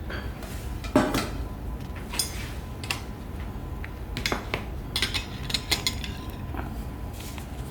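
Metal serving spoons scraping and clinking against a baking dish and plate as a casserole is scooped out and served, with a dozen or so separate clinks, the loudest about a second in and a run of them a little past the middle.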